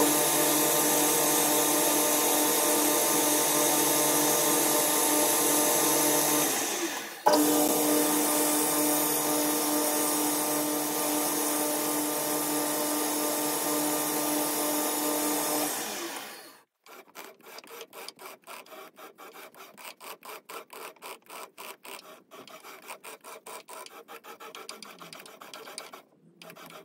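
Boxford BUD lathe running steadily while centre drilling and then drilling brass stock, with a brief break about seven seconds in; the motor winds down about sixteen seconds in. Then a rapid run of short scratchy ticks as a tap cuts a thread into the drilled brass hole.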